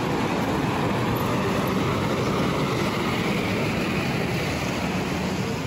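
A box lorry driving past close by, its engine and tyres giving a steady noise that stays at an even level.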